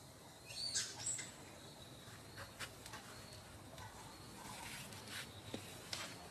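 A baby macaque gives a couple of brief, high-pitched squeaks about half a second in, the first rising sharply. Faint clicks and taps follow.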